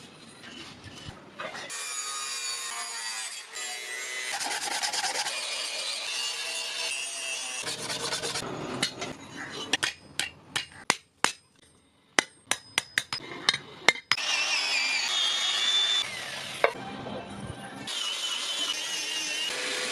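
Steel being abraded in the shaping of a trowel blade: steady scraping or grinding with wavering high tones, in stretches that stop and start abruptly. In the middle comes a run of a dozen or so separate sharp metal strikes or clinks.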